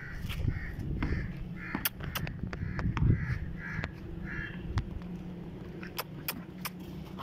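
Crows cawing, a string of short repeated caws in the first half, with scattered sharp clicks and knocks.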